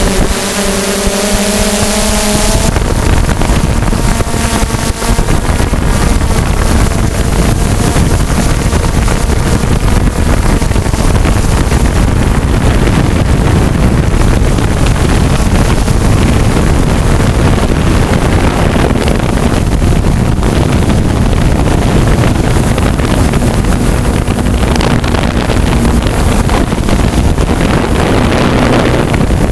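DJI F550 hexacopter in flight heard from its onboard GoPro: a loud, steady rumble of propeller wash and wind on the microphone, with a whine from the electric motors during the first couple of seconds.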